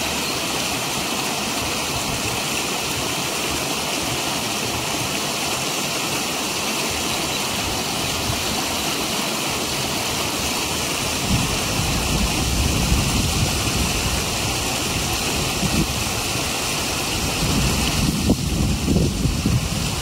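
Steady rush of water spilling over the stone edge of a small man-made pond. About halfway through, low gusts of wind buffet the microphone.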